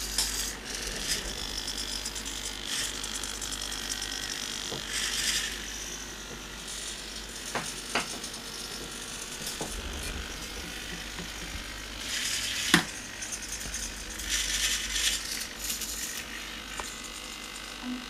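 High-torque metal-geared hobby servos of a robot arm whirring in short bursts as the arm moves slowly through a recorded sequence. A few sharp clicks, the loudest about three-quarters of the way in.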